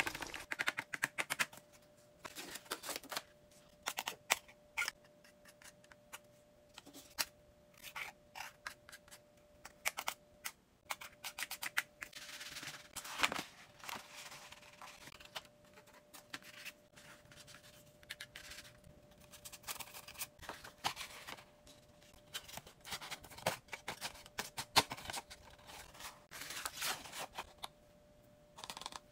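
Paper and card cutouts being handled: irregular rustles, scrapes and light taps as pieces are slid, flipped and set down, with a faint steady hum underneath.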